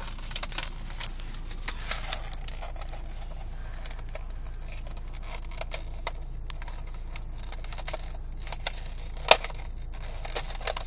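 Plastic and card packaging of a toy figure five-pack being pried and torn open by hand: scattered crinkles and small clicks, with one sharper click about nine seconds in.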